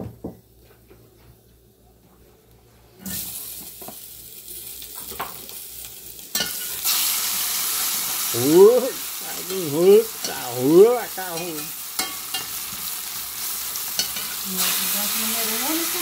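Pieces of floured traíra fish frying in hot oil in a pan, sizzling. The sizzle starts about three seconds in and gets louder a few seconds later. Over it come several short pitched calls that waver up and down, about halfway through and again near the end.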